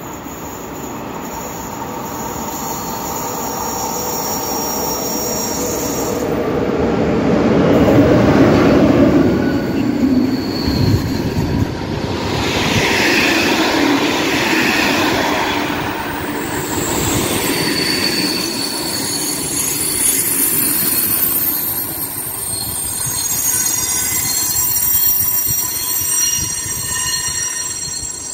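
Locomotive-hauled passenger train pulling into the station. Its running noise builds to a peak about eight seconds in. The coaches then roll past while braking, with a high squealing in several steady tones that carries on as the train slows.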